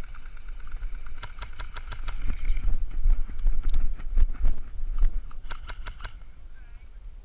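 Airsoft guns firing short bursts of rapid sharp clicks, about a second in and again near six seconds, with scattered single shots between, over a steady low rumble.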